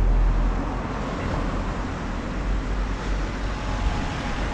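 Steady road traffic noise: a low rumble with a hiss of vehicles on the street, slightly louder at the start.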